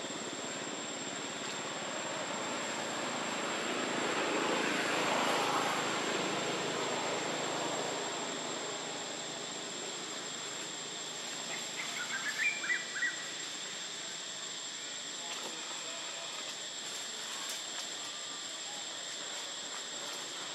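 Forest ambience: a steady high insect drone, with a broad rushing noise that swells for a few seconds and fades. About twelve seconds in, a quick run of about six high chirps stands out.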